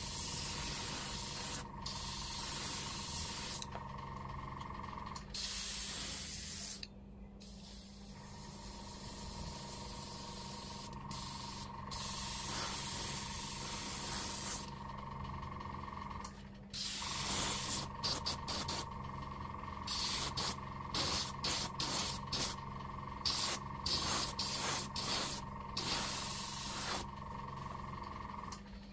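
Airbrush hissing on and off as the trigger is worked: longer passes, then a run of short bursts about two a second, over a steady hum.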